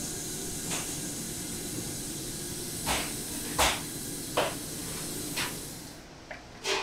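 Steam hissing steadily from a large wooden steamer as it is opened, with a few sharp knocks and clicks of handling over it; the hiss stops about six seconds in, followed by a couple more knocks.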